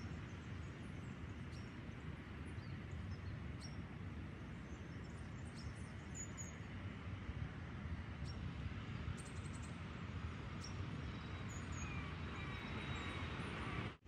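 Steady low rumble of distant road traffic, with small birds chirping briefly now and then above it.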